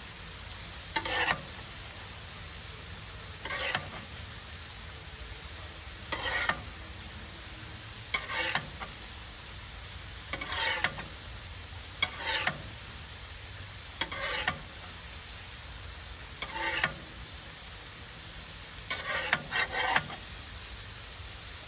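Smash burgers and bacon sizzling on a hot griddle, a steady frying hiss, with short scraping strokes about every two seconds, typical of a metal spatula on the griddle top.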